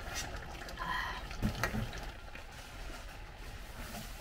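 A metal ladle clinks against a stainless steel pan of stew with a brief ring about a second in, then knocks softly a couple of times. A steady low hum runs underneath.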